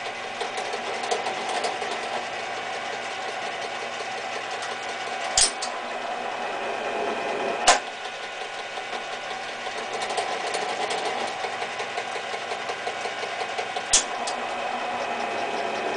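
Minilathe running at about 150 RPM, its gear train and feed making a steady mechanical whirr, during a cleanup single-point threading pass with no infeed on a 10-32 thread. Three sharp clacks, about five, eight and fourteen seconds in, as the dog clutch engages and trips the carriage feed.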